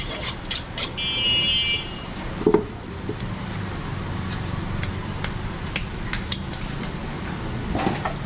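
Steady low rumble of background traffic with scattered light clicks and knocks; a brief high ringing tone about a second in and a short louder knock about two and a half seconds in.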